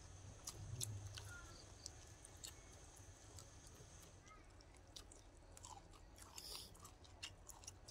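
Faint chewing and crunching from several people eating vegetables and picking at chicken and crab by hand, with scattered small clicks.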